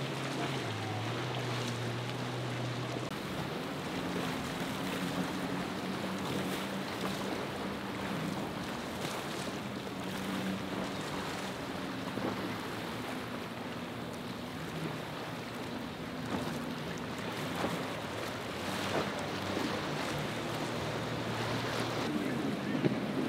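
Boat engines droning as small powerboats run through choppy inlet water, the pitch of the drone shifting now and then, over the steady hiss of wave wash and spray.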